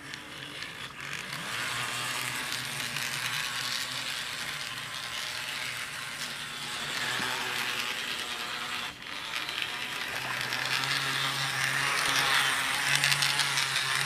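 Bachmann Spectrum 44-tonner model diesel locomotive running along the track under power, its small electric motor and gears whirring steadily. The whir grows louder over the second half.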